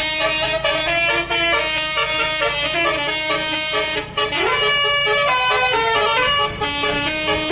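Bus 'telolet' Basuri multi-tone air horn playing a tune of stepping notes, with a rising glide about four and a half seconds in.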